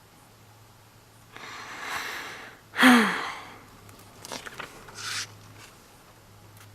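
A person draws a long, rising breath in, then lets out one loud, short vocal burst that falls in pitch. A few light clicks and a brief rustle follow.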